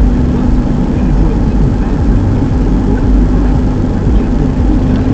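Car driving: steady engine and road rumble, heavy and low, with a constant hum held throughout.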